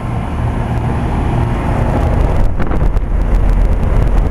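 1990 Bryant 5-ton straight-cool condensing unit running: a steady hum from the compressor under the rush of the condenser fan blowing air out the top, with the unit working under a very high heat load. A low buffeting of air on the microphone grows about halfway through.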